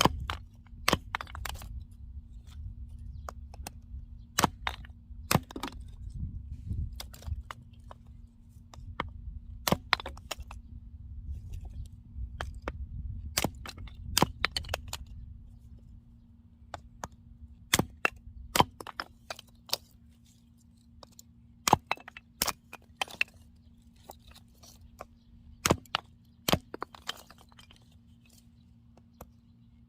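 Axe splitting firewood: sharp cracks of the blade striking and splitting wood, coming irregularly, sometimes in quick clusters, all through.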